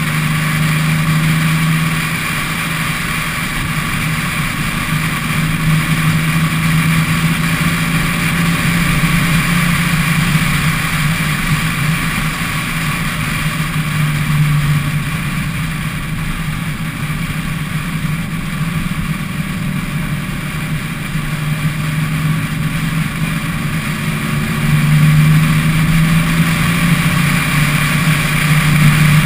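Car engine running at a steady cruise while driving, heard from outside on the roof with wind and road noise. The engine note swells and eases a few times.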